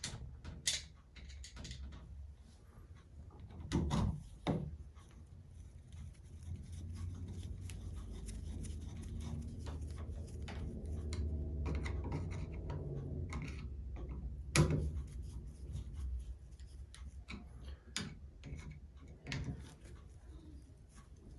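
Clicks, knocks and rubbing of tools and small metal parts as the screws holding the new shower faucet cartridge's clamp are fitted and tightened, with a low steady hum through the middle and a sharp knock about 15 seconds in.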